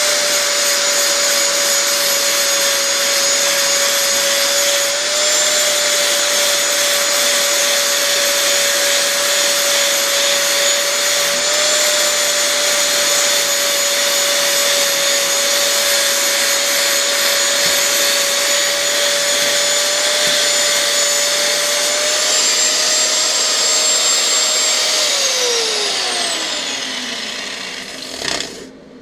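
Angle grinder with a flap disc running steadily with a constant whine, smoothing down the brazed filler on a brass check valve repair. About 25 s in it is switched off and winds down, its pitch falling over a few seconds, with a short knock near the end.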